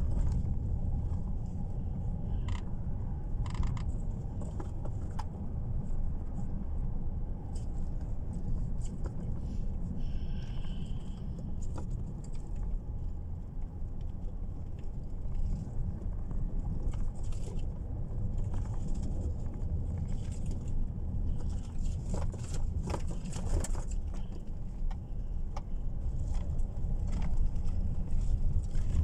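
Steady low rumble of road and engine noise inside a moving car's cabin, with scattered light clicks and rattles, a cluster of them a little past twenty seconds in, and a brief faint high tone about ten seconds in.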